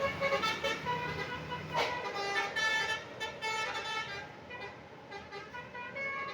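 Tour bus's 'telolet basuri' multi-tone horn playing a tune of short notes that step up and down in pitch, growing fainter in the second half.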